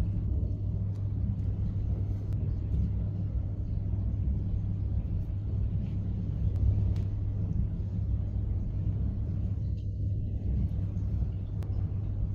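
A steady low rumble with faint, scattered light clicks.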